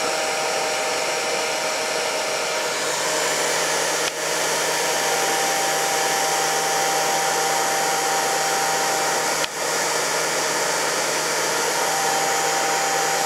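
Heat gun running on its lowest setting, blowing a steady rush of hot air with a faint high whine. It dips briefly twice, about four and nine and a half seconds in.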